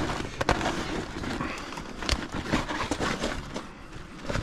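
Handling noise: rustling, with a few sharp knocks about half a second in and again about two seconds in, as speared crayfish are moved around in a container of ice.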